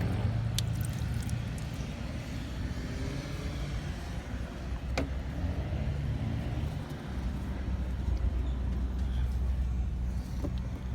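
A steady low engine-like hum that drops to a deeper drone about seven seconds in, with a few sharp clicks.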